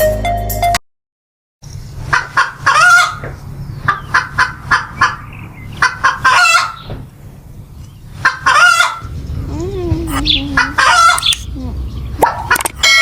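A chicken clucking and squawking in runs of short, repeated calls.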